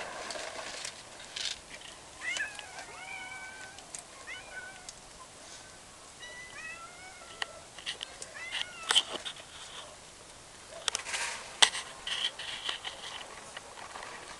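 A young animal giving a series of short, high-pitched, arching mewing cries, one after another with short gaps, with a few sharp clicks around the middle, the loudest a little past it.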